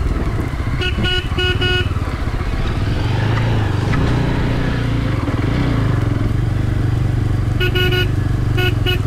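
Motorcycle engine running steadily on the move. A horn beeps in quick strings of short toots about a second in and again near the end.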